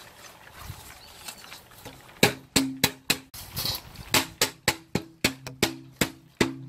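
A plastic PET bottle being banged and crumpled over and over to make noise for desensitising puppies. After a quieter first two seconds, sharp cracks come about three to four times a second, with a steady low tone underneath.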